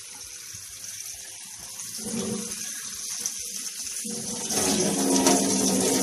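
Kitchen tap water running into a glass jar of cracked green olives held in the sink, filling it with water. The splashing grows louder about four and a half seconds in.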